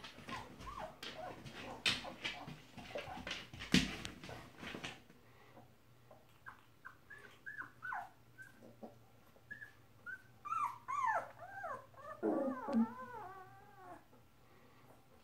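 Young puppies whimpering: short, high, falling squeaks that come more often in the second half, ending in a quick run of repeated whining cries. Before the whimpers, a few seconds of rustling and sharp knocks.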